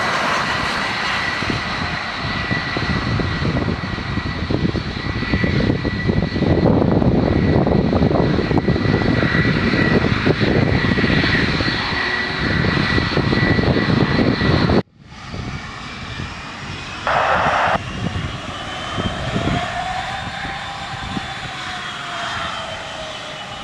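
Jet airliner engines running loud, with a steady high whine over dense roar. After a sudden cut about fifteen seconds in, the engine noise is quieter, and whining tones slide up and down in pitch.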